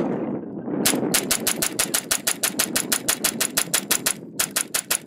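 Semi-automatic .22 LR rifle fired rapidly with Gemtech 42-grain subsonic ammunition, about six shots a second for some three seconds, then a brief pause and a few more quick shots. The rifle cycles every round without a stoppage.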